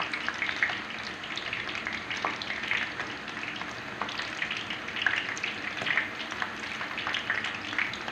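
Palm-leaf-wrapped ketupat palas deep-frying in hot oil in a wok: a steady sizzle with frequent small crackles and pops.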